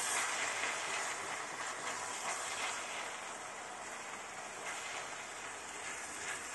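Minced meat sizzling as it fries in a stainless steel pan while it is stirred with a wooden spoon; a steady sizzle that gets a little quieter after the first couple of seconds.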